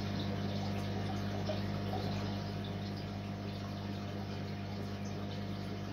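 Aquarium sump system running: water trickling and splashing steadily through the overflow and sump, over a steady low hum.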